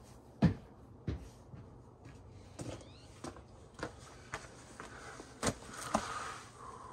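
Scattered light knocks and taps, about eight at irregular intervals, the loudest about half a second in.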